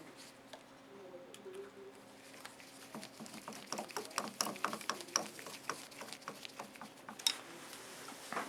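Small Phillips screws being driven by hand into a metal cover plate with a screwdriver: a run of light, quick irregular clicks and scrapes lasting several seconds, then one sharper click near the end.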